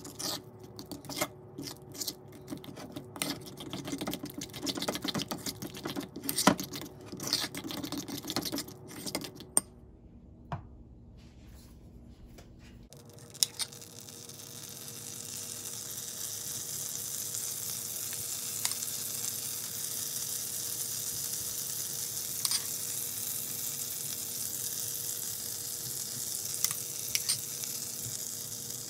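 A utensil stirs and scrapes in a ceramic bowl, mixing flour, egg and mashed banana into pancake batter, with many irregular clicks and scrapes. After a short quieter pause, butter starts sizzling in a frying pan. The sizzle builds over a few seconds into a steady hiss with a few small pops.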